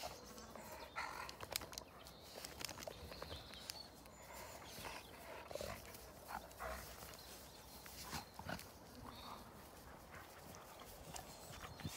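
Two large dogs play-fighting on grass: short, scattered dog vocal sounds amid scuffling, fairly quiet.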